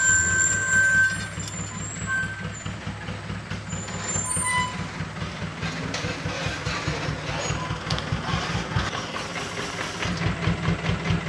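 Diesel engine of a light dump truck running as the truck creeps along a rough dirt track, with a brief high squeal near the start and another about four and a half seconds in. About ten seconds in the truck stops and the engine settles into an even, pulsing idle.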